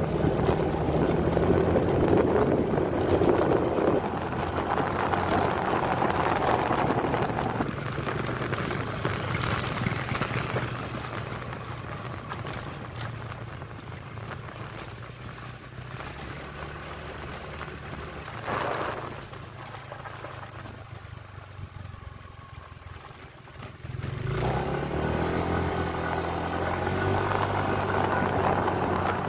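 Small motorcycle engine running while riding along a road, with wind rushing over the microphone. It eases off and gets quieter through the middle, then speeds up again near the end, its pitch rising.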